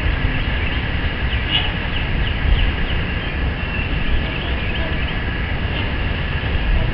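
Steady low outdoor rumble with a few faint, short high bird chirps about one to three seconds in.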